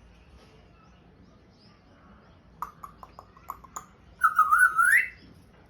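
African grey parrot vocalizing: a quick run of about seven short clicking chirps, then a loud whistle that wavers and sweeps upward at the end.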